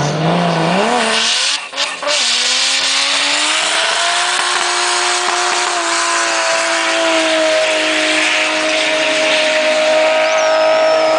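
Drift car's engine revving up, dipping briefly about two seconds in, then held at high revs while the tyres squeal through a slide.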